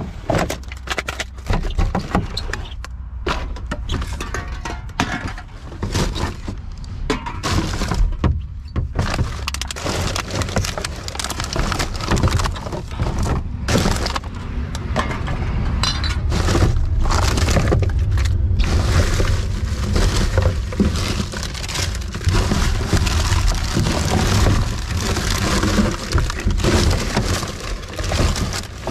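Rubbish being rummaged through by hand in a plastic wheelie bin: paper bags and plastic wrapping crinkling and rustling, with plastic bottles and cans knocking together in a steady run of small clatters.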